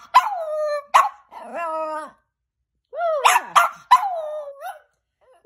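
Chihuahua barking and yowling: sharp yaps that slide down into long falling notes, in two runs with a short pause about two seconds in.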